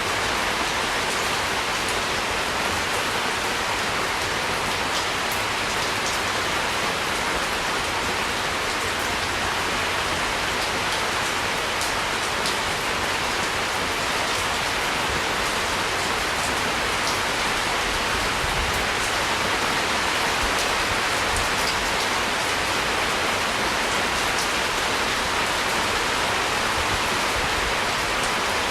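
Steady rain falling, an even hiss with scattered drop ticks and no change in strength.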